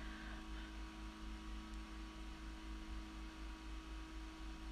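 Steady electrical mains hum with faint hiss.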